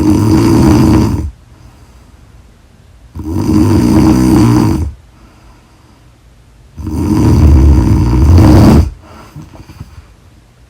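A woman snoring loudly: three long snores, each lasting about one and a half to two seconds, coming about every three and a half seconds with quiet between them.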